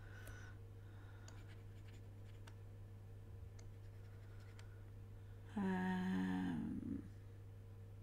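A woman briefly humming a few notes, about five and a half seconds in, for roughly a second and a half. Under it is a steady low hum and scattered faint computer-mouse clicks.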